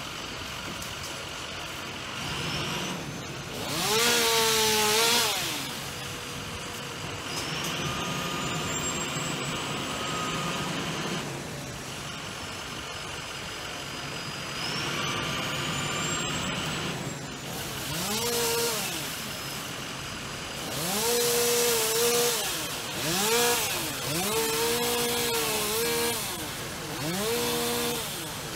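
Chainsaw at work in tree trimming, revving up and dropping back again and again. Each rev climbs, holds briefly and falls. There is one long loud rev a few seconds in, and a quick run of revs in the second half. A steady engine drone runs underneath.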